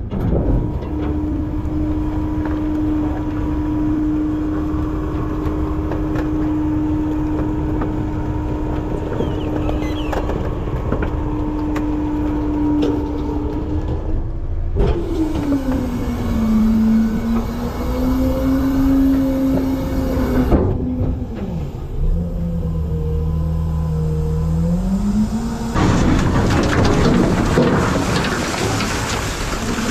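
Front-load garbage truck's engine and hydraulics running with a steady drone that shifts in pitch about halfway through, dipping and rising as the lift works. About four seconds before the end, a container's load of trash pours down into the hopper with a loud, dense rush.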